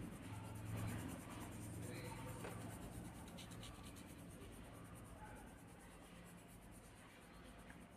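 Faint scratching of a pencil lead on paper as an area is shaded in.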